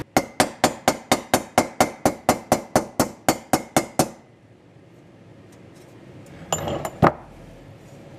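Rapid, even hammer taps on a stainless steel trim molding, about four or five a second for some four seconds, beating a tight radius flat over the rounded head of a second hammer used as a dolly. About seven seconds in there is a short clatter and one sharp metal clank.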